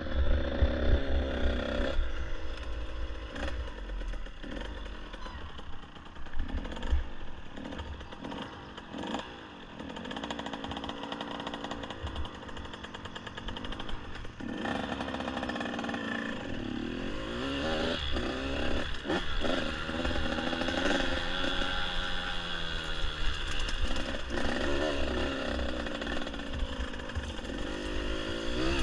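Dirt bike engine running under way, its pitch rising and falling as the throttle opens and closes over a rough grass trail. A low rumble on the helmet-camera microphone and occasional short knocks from bumps run underneath.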